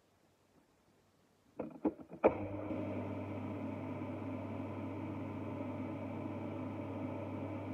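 Personal bullet-style blender: the smoothie cup knocks and clicks onto the motor base three times about a second and a half in, then the motor runs steadily, blending a fruit juice smoothie.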